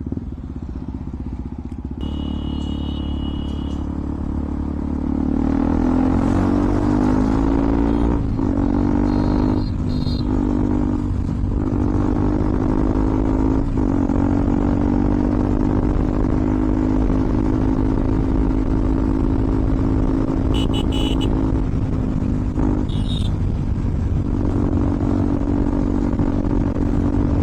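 KTM Duke 200 single-cylinder engine running through an aftermarket Akrapovic exhaust with the dB killer removed. It revs up through several gear changes, its pitch climbing and dropping back, then holds a steady cruise. A few short horn beeps sound from traffic.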